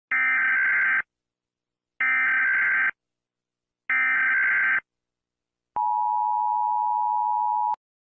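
US Emergency Alert System alarm: three short bursts of digital SAME header data, about two seconds apart, then the steady two-tone attention signal for about two seconds, cut off abruptly.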